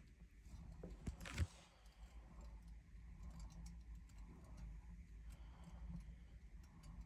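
Near-quiet room tone with a low hum, broken by a few faint clicks and one soft knock about a second and a half in.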